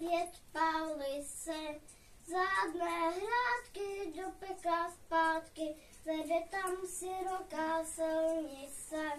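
A child singing a song unaccompanied, in short held notes with brief pauses between phrases.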